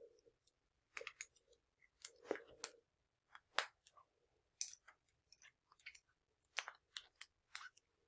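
Plastic IV administration set being handled and its spike pushed into the port of a saline fluid bag: faint scattered clicks and plastic crinkles, about a dozen over several seconds.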